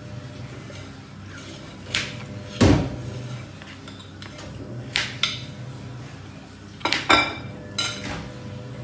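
Kitchen clatter while vegetables are being cut up: about seven irregular knocks and clinks of a knife, cutting board and dishes, the loudest about two and a half seconds in, some ringing briefly. A low steady hum runs underneath.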